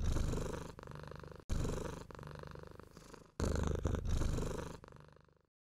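Domestic cat purring in three stretches of about two seconds each. Each starts loud and fades, and they are cut off sharply one after another.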